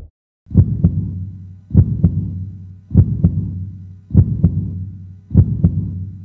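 Slow heartbeat sound effect: deep double thumps, one pair about every 1.2 seconds, five pairs in all, each fading into a low rumble. It starts after a brief silence.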